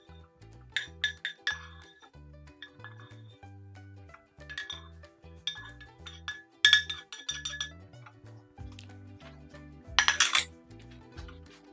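Metal spoon clinking and scraping against a pan as toasted korerima (Ethiopian cardamom) seeds are scooped out and tipped into a spice grinder, with several short rattles of seeds and a louder rattle about ten seconds in. Background music with a steady bass line plays throughout.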